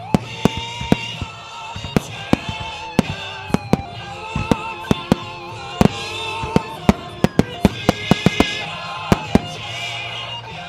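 Fireworks shells exploding in a rapid series of sharp bangs, thickest in a volley about seven to eight seconds in, over music with a wavering melody.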